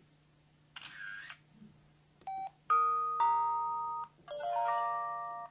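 PH-L4000V mobile phone's built-in sound effects played through its speaker. A short buzzy blip about a second in, then a single short beep, then three synthesized chime chords that each ring out and fade.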